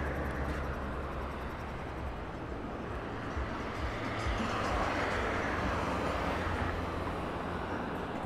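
Road traffic: a steady wash of passing cars, swelling as one goes by about halfway through.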